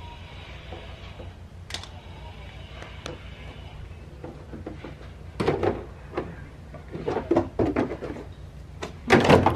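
A car's plastic inner wheel-arch liner being worked loose and pulled out: a few light clicks, then from about halfway repeated bursts of plastic rattling and knocking, loudest near the end.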